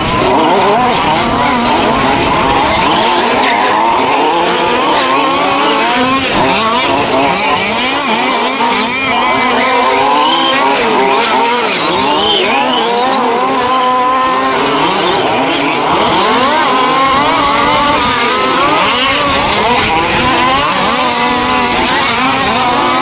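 Several 1:5-scale RC off-road trucks racing together, their small two-stroke petrol engines revving, with many overlapping engine pitches constantly climbing and dropping.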